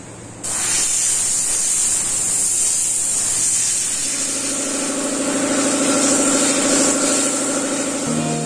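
Airbrush spraying paint: a steady hiss of compressed air that starts about half a second in, with a steady hum joining about halfway through. Music starts just before the end.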